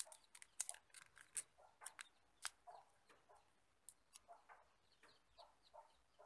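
Faint crinkling and sharp little clicks of a slit plastic drinking straw being folded and pressed flat between fingers, busiest in the first couple of seconds and sparser after.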